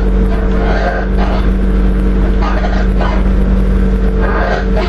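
Passenger train running, heard from inside the carriage: a steady low rumble of wheels on rail with a constant drone from the traction equipment, as the train runs in toward the station platforms.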